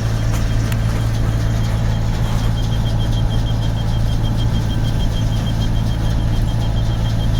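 Tractor engine running steadily under load while driving a baler, with a fast, regular high-pitched ticking or squeak joining in a couple of seconds in.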